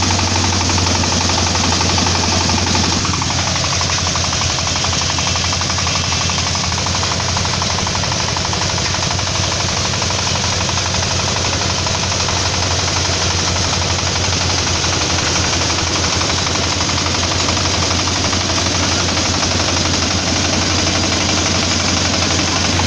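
Crop threshing machine running under load, its 32-horsepower engine knocking rapidly and steadily while the threshing drum thrashes dried pulse plants as they are fed in. A brief falling whine about three seconds in.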